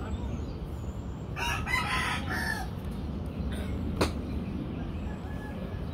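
A rooster crowing once, a drawn-out call lasting a little over a second, over a steady low rumble. About four seconds in comes a single sharp click.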